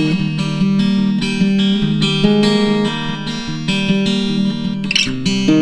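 Background music: a strummed acoustic guitar tune.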